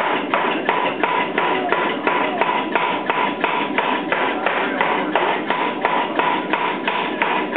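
400 lb Chambersburg air hammer striking a glowing billet of 4140 steel in a steady run of blows, about four a second.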